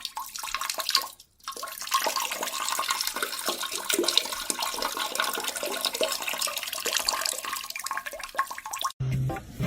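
Water rushing and splashing steadily, breaking off briefly about a second in and then running on.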